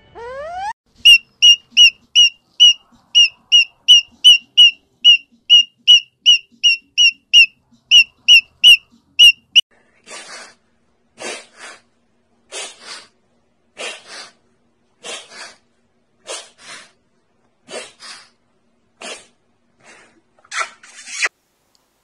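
A short rising whistle, then a fast run of loud, evenly spaced high-pitched squeaks, about three a second, for roughly nine seconds. From about ten seconds in, a rainbow lorikeet gives harsh screeches, mostly in pairs about a second apart.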